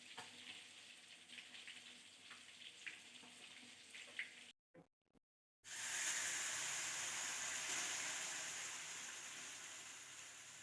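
Food frying in hot oil: at first a faint crackle with scattered small pops, then, after a brief gap, a loud steady sizzle that starts suddenly about halfway through and slowly fades.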